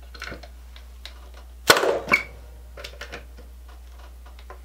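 Sears Craftsman Industrial electric brad nailer firing a square cut nail into hard pallet wood: one sharp pop about one and a half seconds in, with a lighter knock just after it.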